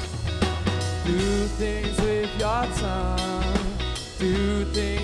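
Live indie rock band playing between vocal lines: electric guitar, acoustic guitar, bass and a Tama drum kit, with a melody line that slides upward a couple of times.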